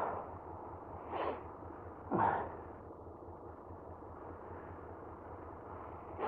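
A rider's breaths and sighs into a helmet microphone, a few short exhales about a second apart near the start and another at the end, over the low steady hum of a Honda VFR800Fi V4 engine ticking over.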